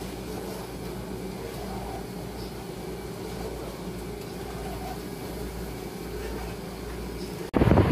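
Steady low machine hum of a dialysis unit, where dialysis machines are running beside the chair. Near the end it cuts suddenly to loud wind buffeting the microphone.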